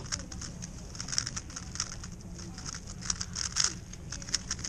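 Rapid, irregular clicking and clacking of a WRM 2021 3x3 speedcube's layers being turned at speed during a solve.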